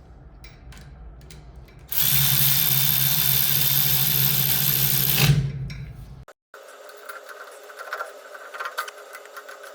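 Cordless drill running steadily for about three seconds with a high whine, then spinning down. Light rubbing and clicking of tools follows.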